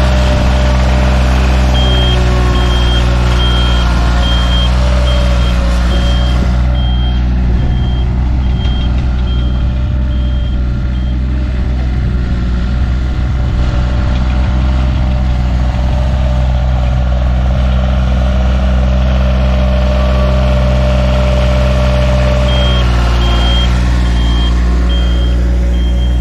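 Takeuchi TB216 mini excavator's diesel engine running steadily at working revs. A reversing or travel alarm beeps about one and a half times a second from about two seconds in to about eleven seconds, and again near the end.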